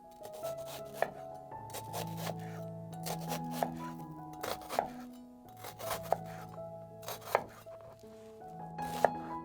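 A knife chopping on a cutting board in sharp strokes, roughly one every second or so and sometimes in quick clusters, over steady background music.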